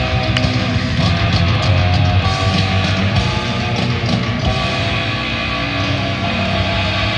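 Live jazz-rock fusion band playing: electric guitar, bass guitar, keyboards and drums in a loud, dense passage.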